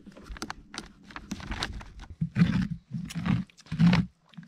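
A hand scraping and scooping the stringy pulp and seeds out of a hollowed pumpkin: a few light clicks at first, then a series of wet scrapes, the heaviest three in the second half.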